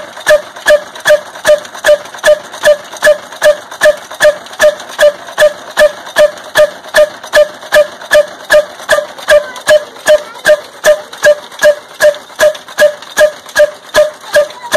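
Old Ruston horizontal single-cylinder diesel engine running at a slow, steady beat. Each beat is a sharp, ringing knock, about two and a half a second.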